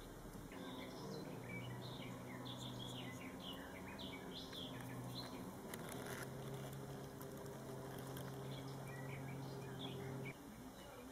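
Small birds chirping in short, quick calls, over a steady low hum that stops near the end.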